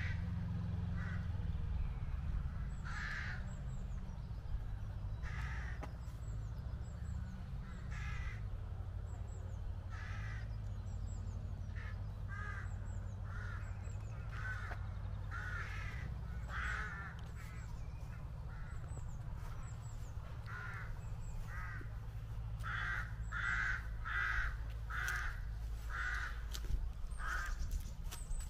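Crows cawing repeatedly, roughly one call a second, quickening into a rapid run of calls near the end, over a steady low rumble.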